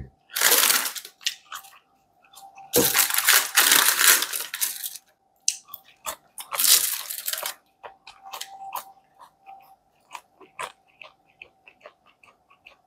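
Close-miked eating of McDonald's fries: a few loud crunching, rustling bursts in the first half, then a run of small, quieter chewing clicks.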